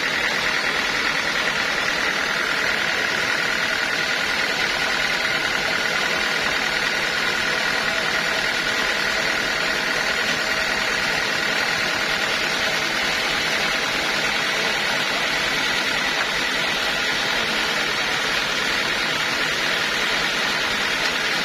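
Sawmill machinery running steadily: a dense, unchanging mechanical noise with a steady high whine over it.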